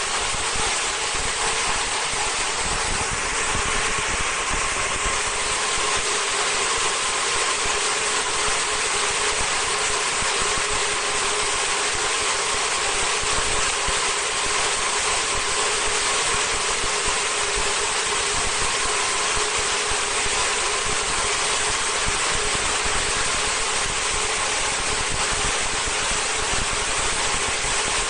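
Vertical high-speed film slitting machine running at a steady speed: a constant whir and hiss with a faint steady hum underneath.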